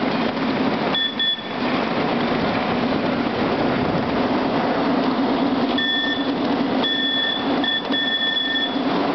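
A ridable miniature train running along its track with a steady rumble. Its whistle gives a short toot about a second in, then near the end sounds a sequence of blasts, long, long, short, long, like a grade-crossing signal.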